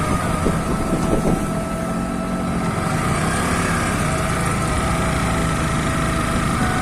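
Yamaha R15 V3's single-cylinder engine running steadily while the motorcycle is ridden on the road, heard as a continuous rumble.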